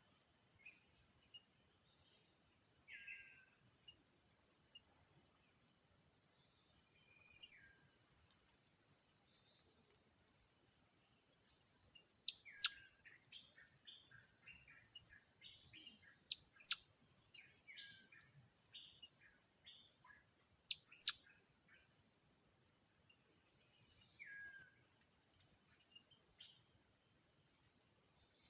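Blue-crowned hanging parrots (serindit) giving short, sharp, high-pitched calls, mostly in quick pairs, in bunches from about twelve seconds in. Insects keep up a steady high-pitched drone underneath.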